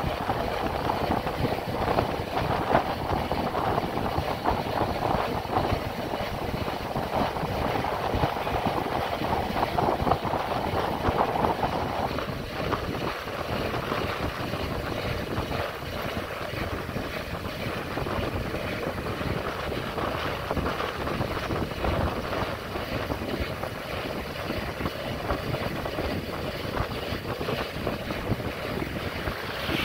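Wind buffeting the microphone over the running engine and road noise of a motorcycle being ridden. The noise is steady, easing slightly about twelve seconds in.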